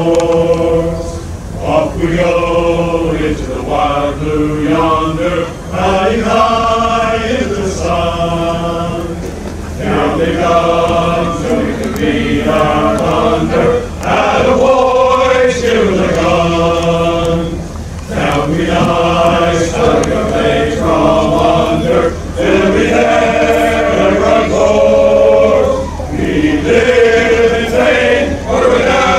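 Male choir singing military anthems in long held phrases, several voices together.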